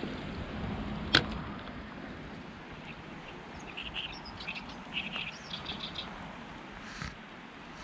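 A small bird chirping in a quick run of short high notes, over steady background noise. A single sharp click about a second in is the loudest sound.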